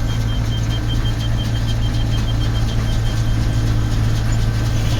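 Tractor engine running steadily under load, with a rapid, high-pitched electronic beeping, about four beeps a second, that stops about three and a half seconds in.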